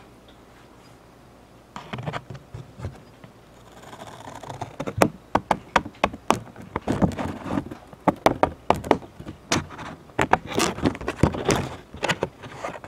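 Funko Pop cardboard box with a clear plastic window being pulled apart by hand at its glued seams. It is quiet at first, with a few clicks, then a short rasp, then a dense run of sharp crackles and clicks.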